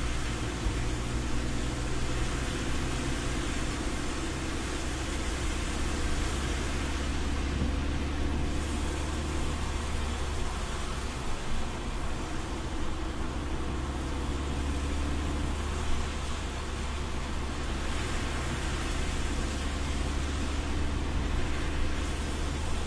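Inside a car driving on a wet road: a steady low rumble of engine and road, with the hiss of tyres on wet asphalt over it and a couple of small bumps.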